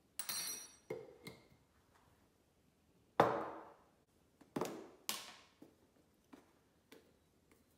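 Kitchen handling sounds while measuring ingredients: a short ringing clink, a few light taps, then three sharper knocks, the loudest about three seconds in, as spoons and containers are handled and set down on the bench.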